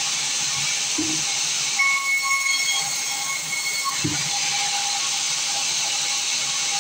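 Sawmill saw running through timber: a steady high hiss with a thin whine over it, and two brief low knocks about a second and four seconds in.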